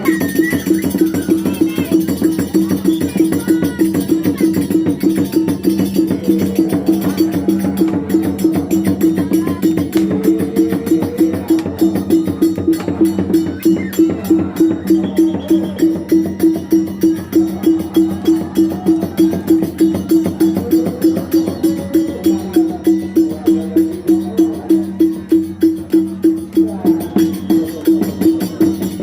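Traditional Sasak percussion music of the kind that accompanies peresean: a pitched beat struck evenly about three times a second over a steady low held tone, played without a break.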